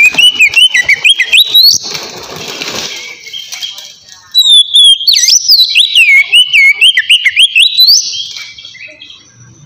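Oriental magpie-robin singing: two loud bursts of song with sliding whistles and quick high chirps, the first ending in a harsh rasping note, with a short pause between them.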